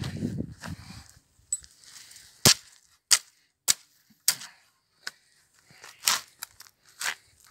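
Steel garden spade digging into soil: a low crunch as the blade is driven into the ground, then a string of sharp, irregular knocks as the blade chops and turns clods of earth.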